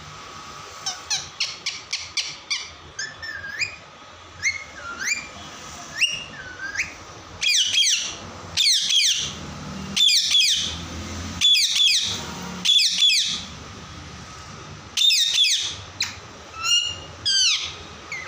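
A parrot calling. It starts with a quick run of chirps, moves into rising whistled calls, and then gives a string of loud harsh screeches about a second apart.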